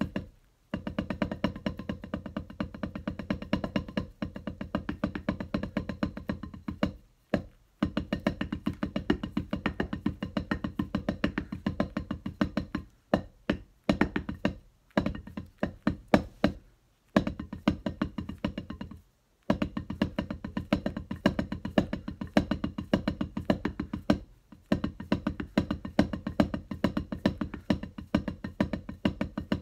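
Drums played in fast runs of rapid strokes, with a clear pitch ringing under the hits. The runs stop for several short pauses, about a second into the clip, near 7 and 13 seconds, around 17 and 19 seconds, and near 24 seconds.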